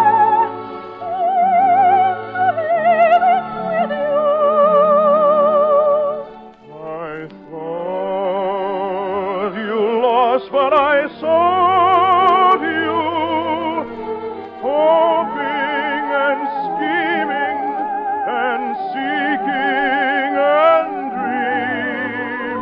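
Operetta singing with a wide vibrato over orchestral accompaniment, in a sung number from a 1950s radio operetta broadcast; the singing breaks off briefly about six seconds in, then resumes.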